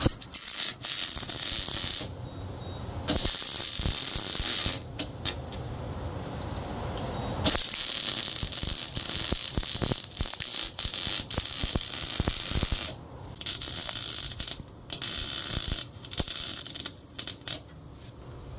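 Electric arc welding on steel: several runs of crackling and sizzling from the arc, the longest about five seconds, with short pauses between beads.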